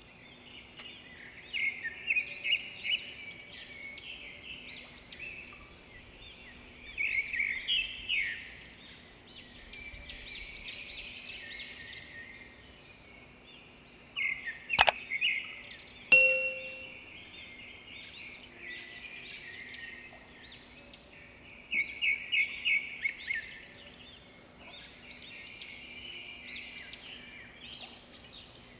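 Birds chirping throughout, in bursts of quick repeated chirps, over a faint steady hum. About halfway there is a sharp click, and a little over a second later a single bell-like ding that rings out and fades.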